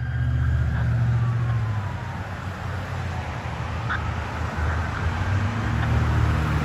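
Emergency vehicle's electronic siren on the Powercall tone winding down, a held high note sliding steadily lower over about two seconds, over the loud low rumble of the vehicle's engine.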